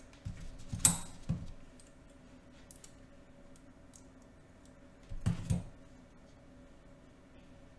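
Small handling clicks and light knocks from fingers working wires and tape at a work surface, in two short clusters about a second in and about five seconds in, over a faint steady hum.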